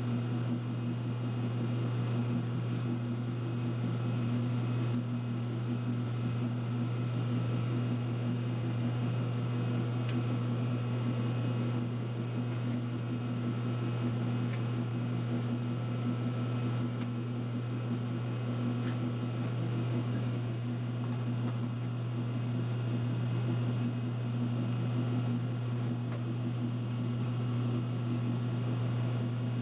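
Steady low machine hum from running shop equipment, with a few light metal ticks and, about two-thirds of the way through, a brief high clink.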